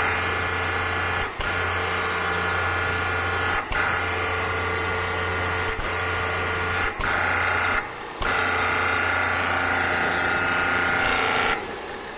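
High-pressure washer running and spraying water from its lance, a steady hum with several brief dips, dropping away near the end. After new pump packings it builds only about 100 bar instead of 200, which the owner suspects is a faulty pressure regulator.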